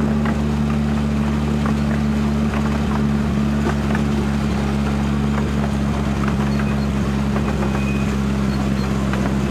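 Engine of a miniature diesel-outline locomotive running at a steady speed as it hauls the train, a constant low drone. Faint irregular clicks sound over it throughout.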